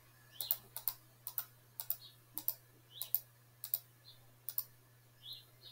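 Computer mouse button clicked about eight times, roughly one click every half second, each a quick press-and-release double tick.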